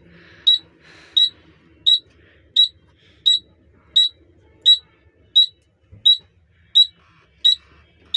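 Truck cab's dashboard warning buzzer beeping steadily, a short high-pitched beep about every 0.7 seconds.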